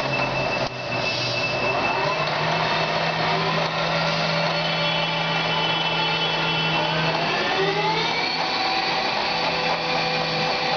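Harrison Alpha 600 CNC lathe running, with a steady hum and a VFD-driven spindle whine that rises in pitch about a second in and again around seven to eight seconds in, then holds steady.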